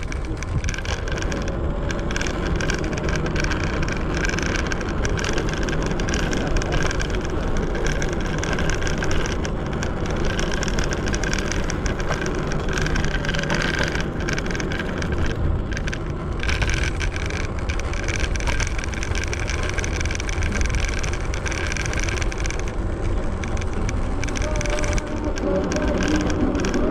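Segway Ninebot ES4 electric scooter riding over city pavement on solid tyres: a continuous rumble and rattle of road vibration, with wind noise.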